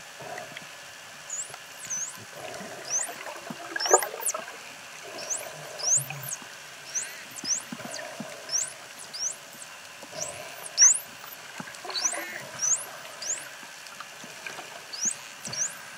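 Indo-Pacific bottlenose dolphins whistling underwater: a string of high, mostly upswept or looping whistles, one or two a second, over a steady hiss of water with a few faint clicks.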